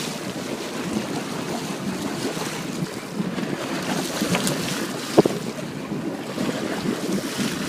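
Wind buffeting the microphone over the wash of the sea around a boat, with one sharp knock a little after five seconds in.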